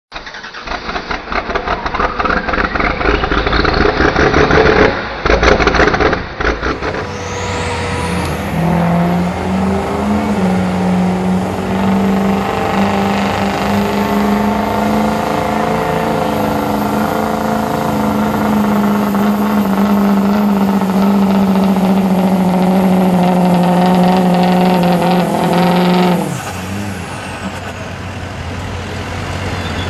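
Ford Super Duty diesel pickup pulling a weight-transfer sled at full throttle. The engine revs up over the first few seconds of the launch, then runs hard under heavy load with a high turbo whistle for about twenty seconds. Near the end the engine lets off and the whistle winds down.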